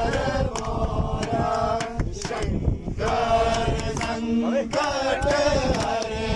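A group of young men and women singing a devotional chant together, keeping time with hand claps.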